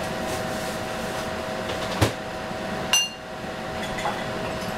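Two hard knocks about a second apart, the second a brief ringing clink, over a steady kitchen hum.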